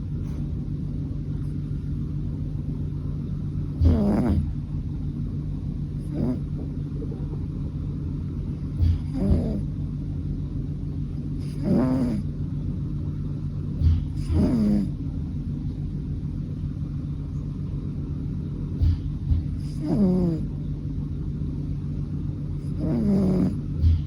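American Shorthair cat snoring in its sleep: short snores at irregular gaps of a few seconds, each falling in pitch, over a steady low hum.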